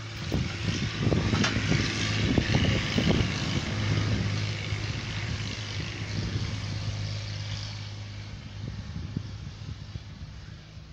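Tractor engine idling with a steady low hum. A few dull knocks come in the first few seconds, and the hum eases off somewhat near the end.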